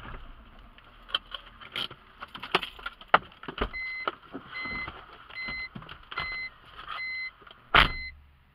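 A car's warning chime beeping steadily, six beeps about 0.8 s apart starting about halfway through, among scattered clicks and knocks in the cabin, with one loud thump near the end.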